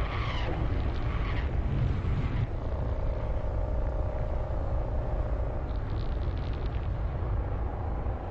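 A steady low rumble. Wavering higher sounds rise and fall over it in the first two seconds, and a faint held tone comes in the middle.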